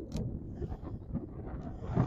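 Wind buffeting the microphone in gusts, with a single sharp click near the start.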